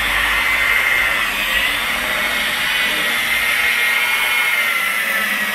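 Electric rotary polisher with a foam pad running steadily at its lowest speed, spreading polish over car paint; a continuous motor whine that wavers slightly in pitch.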